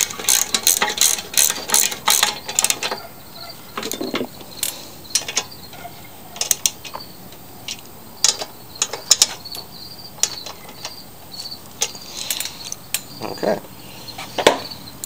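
Socket-wrench ratchet clicking as a bolt on a lawn mower's recoil starter housing is tightened: a quick run of clicks, about three a second, for the first few seconds. After that come scattered clicks and knocks of the tools being handled.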